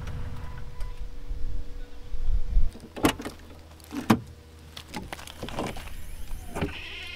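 Rear tailgate latch and flip-up rear glass of a Jeep Wrangler TJ being opened by hand: several sharp clicks and knocks, spaced about a second apart, as the handle is pulled and the hatch glass released and raised. Before them is a low rumble that stops about two and a half seconds in.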